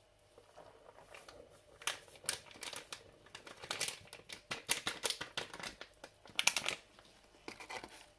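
Paper flour bag crinkling and rustling in gloved hands as wheat flour is shaken out of it into a mixing bowl: irregular crisp rustles and light taps, loudest about six and a half seconds in.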